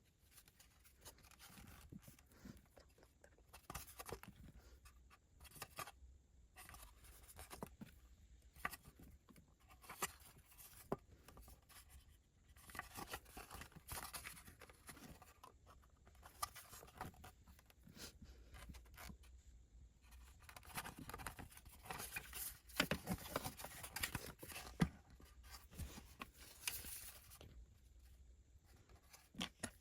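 Toy packaging being handled and opened: quiet, irregular rustling, tearing and scraping, with scattered small clicks and a busier stretch about two-thirds of the way through.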